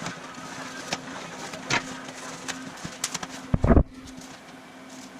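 Scattered knocks and clicks, with a heavier low thud about three and a half seconds in, over a steady low hum.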